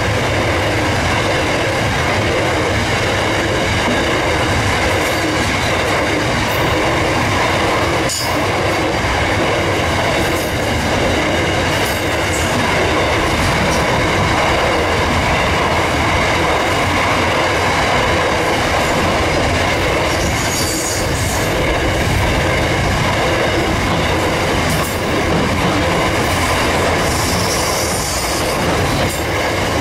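Loaded grain hopper wagons rolling past close by: a steady, loud rumble of steel wheels on the rails, with a steady high-pitched wheel squeal running over it.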